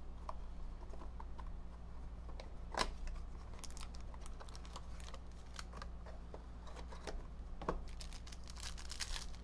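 A cardboard Panini Mosaic Choice trading-card box being handled and opened by hand: scattered taps and clicks of the card stock, a sharper knock about three seconds in and another near the end, and a run of crinkly rustling in the second half as the wrapped pack comes out.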